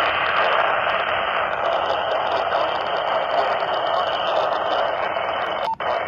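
Steady radio static hissing from a Motorola handheld radio on a weather channel with no clear broadcast. It cuts out briefly with a click near the end, as the channel is switched.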